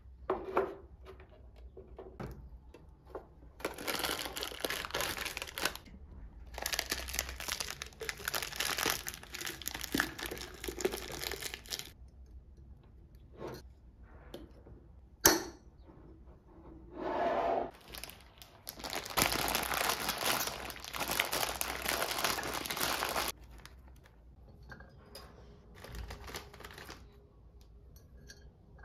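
Packaging being handled and torn open: several long stretches of crinkling and tearing wrap, with a single sharp click about halfway through.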